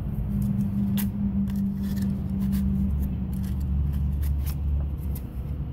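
Scattered light metallic clicks as a band-type piston ring compressor is handled and turned, its steel band and ratchet clicking, over a steady low hum.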